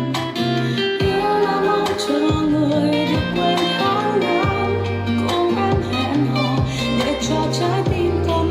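A light Vietnamese pop song played through a Sony HT-A7000 soundbar and picked up by a microphone in the room: melody over a bass line with a regular beat, during a gap between sung lines.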